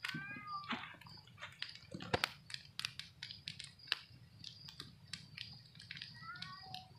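Campfire of burning sticks crackling, with many sharp irregular snaps and pops.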